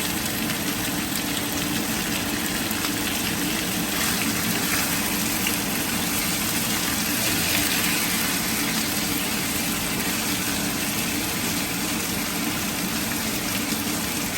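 Fish skin-side down in hot oil in a pan, frying with a steady dense sizzle that swells a little past the middle.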